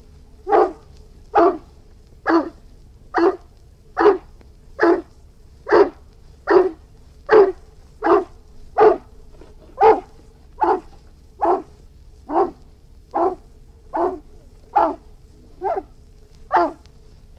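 Irish wolfhound barking in a steady, regular series of single barks, a little more than one a second, about twenty in a row.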